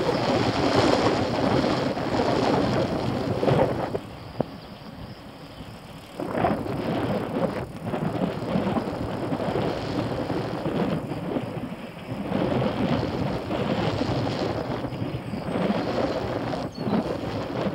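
Wind rushing over the camera microphone on a moving bicycle, mixed with the rumble of its tyres on the path. It drops away for about two seconds about four seconds in, then picks up again.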